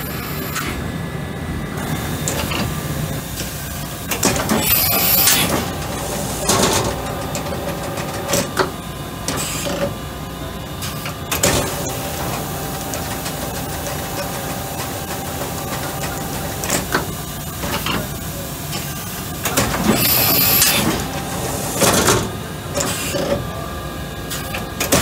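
Doosan VC400 vertical machining center running under power: a steady mechanical hum with a few sharp clunks, and two louder hissing bursts, about five seconds in and again near the end.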